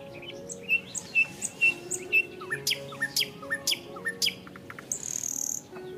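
Small birds chirping: a run of sharp, high chirps about two a second, then a few quicker swooping calls, and a brief high buzzy hiss about five seconds in. Soft background music with held notes plays underneath.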